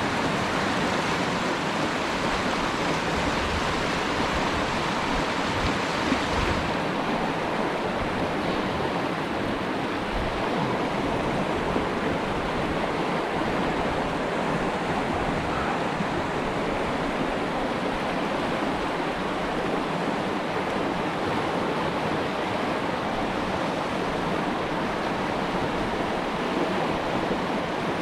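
Steady rush of a fast-flowing river running over rocks; about six seconds in the hiss turns a little duller.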